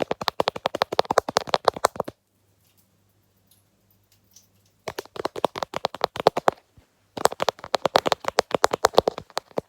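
Fast ASMR tapping, well over ten sharp taps a second, in three runs: it stops about two seconds in, starts again about five seconds in, breaks off briefly, and runs on until just before the end.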